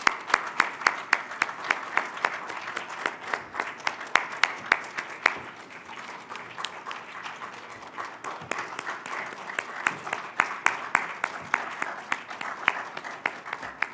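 Applause, with single sharp claps standing out above the rest. It thins briefly about halfway through, then picks up again.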